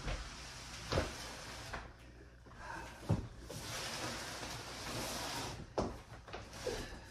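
Large cardboard box holding an exercise bike being pushed and slid across a laminate floor: three dull knocks about two seconds apart, with a scraping hiss of the box sliding between them.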